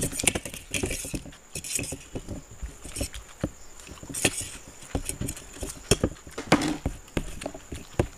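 Two people eating chowmein by hand from steel plates close to a table microphone: fingers scraping and tapping the metal plates, with wet chewing and slurping. Many short irregular clicks and clinks, with louder scrapes about four and six and a half seconds in.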